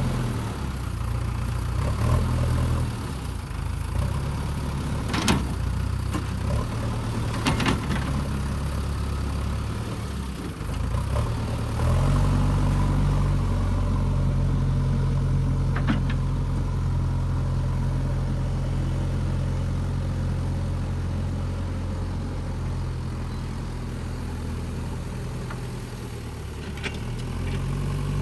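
JCB 3DX backhoe loader's diesel engine running, its speed rising and falling several times, with a few sharp knocks along the way.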